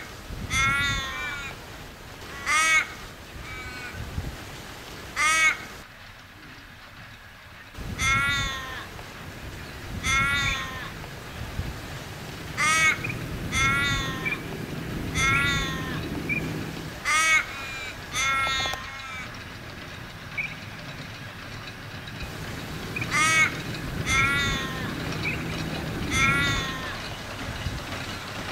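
Australian ravens cawing over and over, short calls repeated every second or two, often in quick runs of a few, over a low steady rumble.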